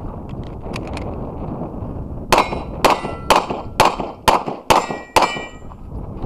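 Seven shots from a 9mm Sig Sauer P320 X5 Legion pistol, fired about half a second apart starting a little over two seconds in. Each shot is followed by the ringing clang of a steel target plate.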